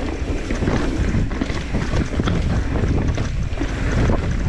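Mountain bike descending a rough dirt and rock trail: wind rushing over the camera microphone and tyres rolling over the ground, with a constant patter of knocks and rattles from the bike.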